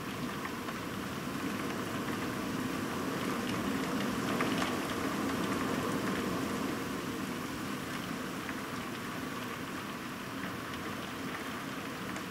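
Heavy rain falling steadily, with scattered drops ticking close by. It swells a little louder through the middle and then eases back.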